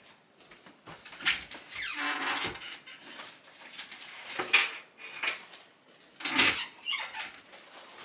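Handling noises as a bag is fetched: a squeak and a series of short rustles and knocks about a second apart, the loudest a little after the middle.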